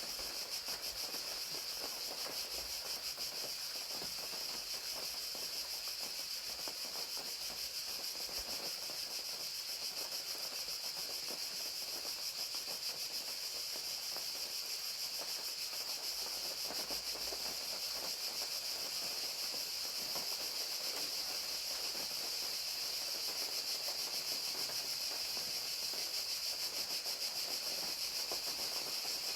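Crickets trilling in a steady, high-pitched chorus of very fast pulses, over an even hiss of falling rain.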